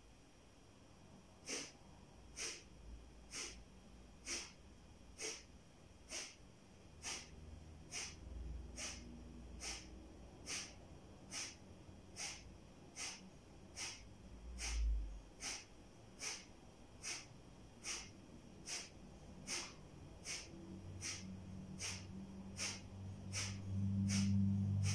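Kapalabhati breathing: a man's short, forceful exhalations through the nose, one after another at an even pace a little faster than one a second, starting about a second and a half in. A low hum swells underneath near the end.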